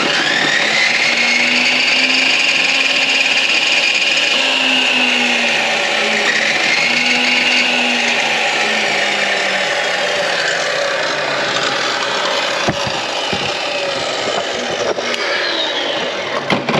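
Table saw's electric motor running with a high whine that wavers and sags in pitch, and a few clicks later on. The motor is weak and burnt out: it has smoked and lost power.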